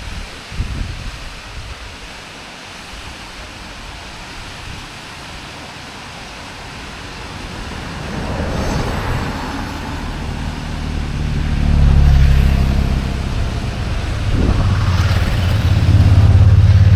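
A steady rushing background. From about eight seconds in, the low hum of a passing motor vehicle grows louder, and a second, louder vehicle comes in near the end.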